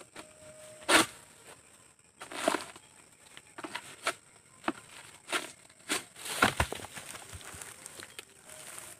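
Long-handled pole sickle cutting at an oil palm's frond bases and fruit-bunch stalk: a run of sharp cracks and snaps of tough fibrous stalk, the loudest about a second in. A heavy thump about six and a half seconds in, as the cut bunch of oil palm fruit drops.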